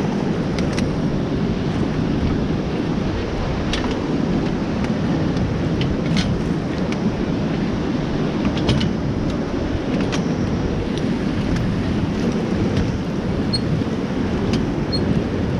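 Steady rush of a river's flowing water around a raft, with a few brief sharp ticks scattered through it.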